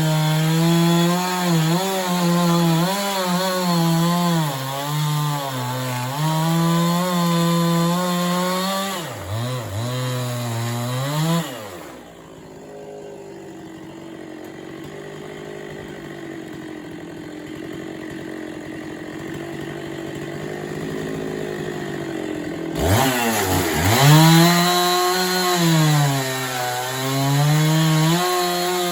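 Chainsaw at full throttle cutting wood slabs, its pitch wavering as the chain loads up in the cut. About twelve seconds in it drops to idle for about ten seconds, then is revved back up and cuts again.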